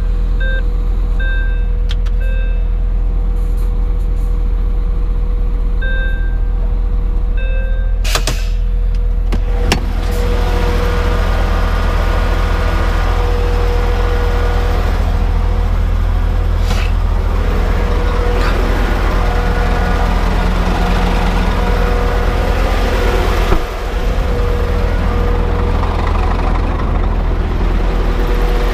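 Scania R truck's diesel engine running steadily, heard from inside the cab. A few short electronic beeps sound in the first seconds, and a short, sharp air hiss comes about eight seconds in; from about ten seconds on the running noise grows fuller.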